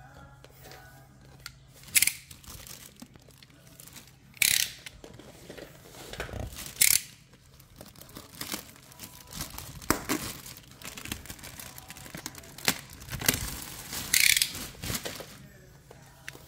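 Clear plastic wrap being pulled off an adjustable dumbbell, crinkling throughout, with a few loud sharp rips as it tears.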